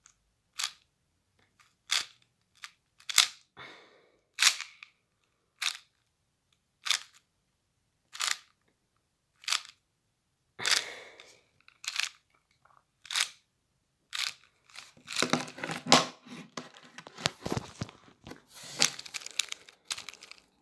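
Plastic 4×4 Rubik's cube layers being turned by hand during a T-perm algorithm: sharp single clicks about one turn a second, then a quick run of rapid turns with rattling clicks over the last five seconds.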